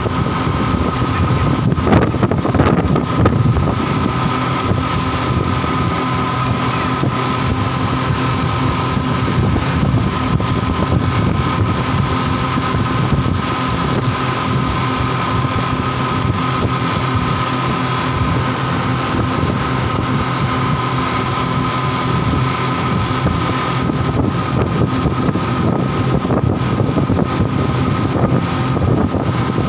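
Passenger speedboat's engines running steadily at cruising speed: a constant drone with a steady high whine, over a rush of wind and water past the boat. It briefly gets louder about two seconds in.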